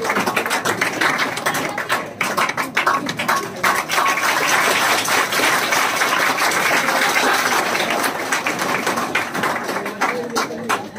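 A roomful of students clapping, a dense patter of many hands that thins out near the end, with voices underneath.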